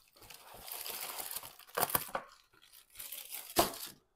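Packaging being rummaged through and handled, rustling, with two sharp crackles, one about two seconds in and a louder one near the end.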